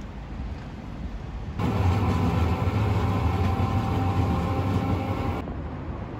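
Street ambience, then about one and a half seconds in a cut to the louder, steady hum and rumble inside a running Nagasaki streetcar, which stops abruptly near the end.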